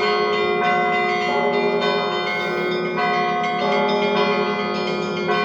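Russian Orthodox church bells ringing: several bells of different pitch struck over and over, each stroke ringing on and overlapping the next.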